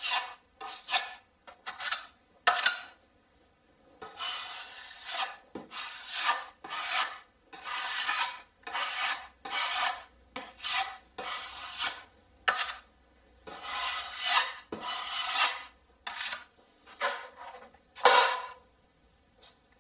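A metal putty knife spreading and scraping joint compound over a plasterboard patch. It makes a run of scraping strokes, some short and some about a second long, with brief pauses between them. The loudest stroke comes near the end.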